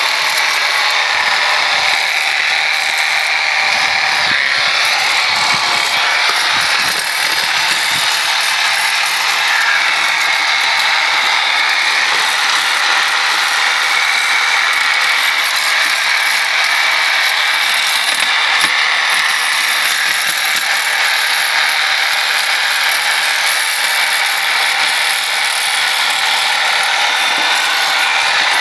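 Corded reciprocating saw running steadily, its blade scraping and chipping barnacle shells off a boat's sterndrive lower unit.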